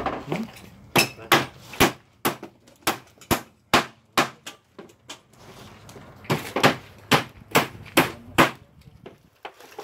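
Hammer blows on wood in two runs of quick, even strikes, about two or three a second: some nine blows, a pause of about two seconds, then six more.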